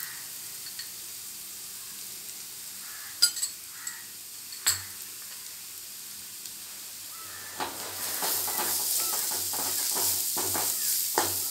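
Chopped onions, ginger, garlic and green chillies sizzling steadily in coconut oil in a pan, with two sharp taps a few seconds in. From about two-thirds of the way through, a wooden spatula stirs and scrapes the mixture, and the sound gets louder and busier.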